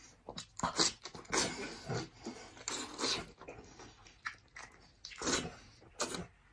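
A person eating saucy braised sheep's head meat with their fingers: wet chewing, lip-smacking and sucking sounds in irregular bursts.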